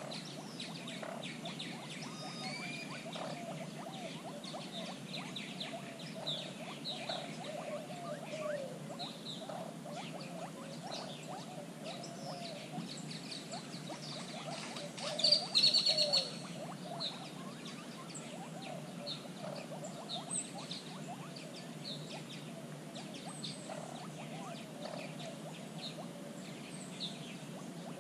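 Wild birds chirping and calling all through, with lower wavering calls underneath; a loud, rapid trill stands out about fifteen seconds in.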